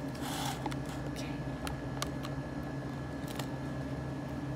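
Scattered light clicks and a brief rustle of a plastic glove handling a plastic tub of honeycomb, over a steady low hum.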